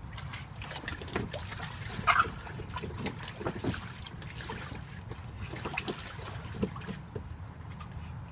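Water trickling and splashing over the rim of an inflatable kiddie pool as a pug presses the soft wall down, with small splashes throughout and one louder splash about two seconds in.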